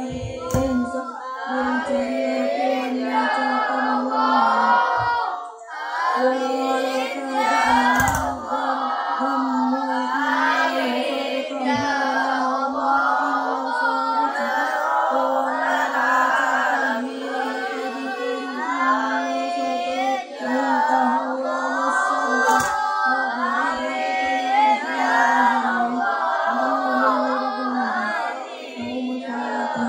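A boy chanting an Arabic closing prayer (doa) into a microphone in a sing-song voice. He holds mostly one steady pitch, with short breaks for breath.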